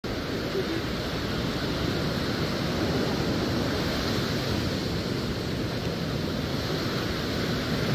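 Steady sea surf with wind rumbling on the microphone.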